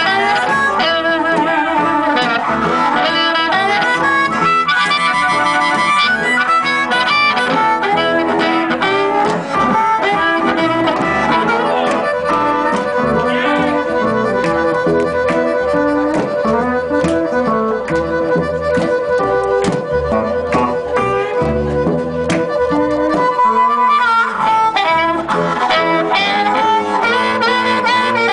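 Live blues band playing an instrumental passage: amplified harmonica leading over hollow-body electric guitar and upright double bass, with one long held note for about ten seconds in the middle.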